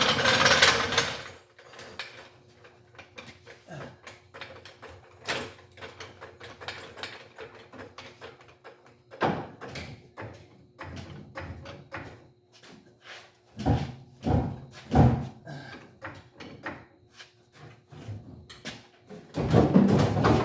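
Scattered metal clicks, knocks and a few heavier clunks from hands-on car body work, after a short noisy burst at the start and with another loud noisy stretch near the end.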